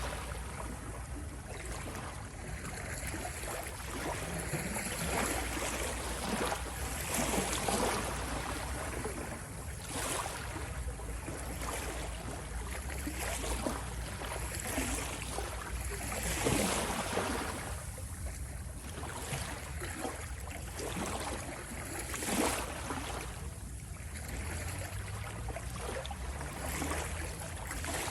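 Ocean waves washing in continuously, with swells that rise and fall every few seconds.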